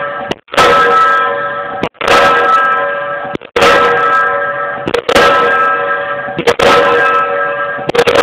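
Diesel pile hammer striking in a steady rhythm, about one blow every second and a half, six in all. Each blow rings out with a bell-like metallic tone that fades before the next one.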